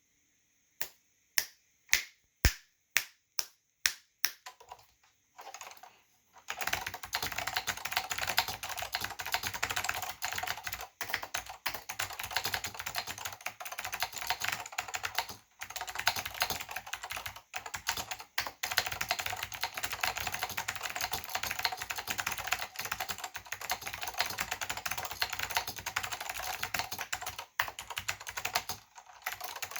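Northgate OmniKey/Plus keyboard with Alps SKCM White (pine) switches and doubleshot ABS keycaps: about ten separate key clicks in the first few seconds, then fast continuous typing from about six seconds in, with a couple of brief pauses.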